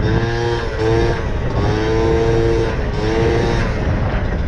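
Peugeot Fox moped's 50 cc two-stroke single-cylinder engine running under way, revving up and easing off in four or five short surges as the throttle is worked. The revving drops away about three and a half seconds in.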